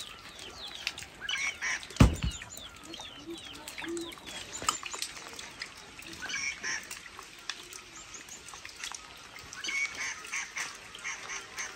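Birds calling and chirping, many short calls through the whole stretch, with busier bursts of calling now and then. A single sharp thump about two seconds in is the loudest sound.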